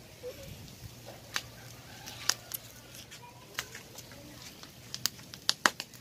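Meat grilling over a charcoal fire, with scattered sharp crackles and pops from the coals, the loudest few near the end.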